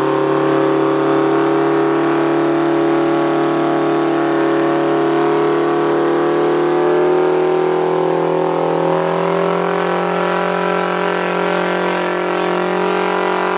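Cockshutt tractor engine running hard and steady under heavy load as it pulls the sled down the track, its pitch sagging slightly in the second half.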